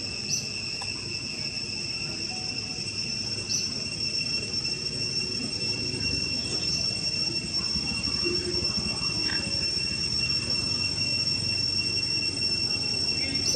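Steady high-pitched insect drone holding two even tones, over a low background rumble, growing slightly louder in the second half, with a few faint short chirps.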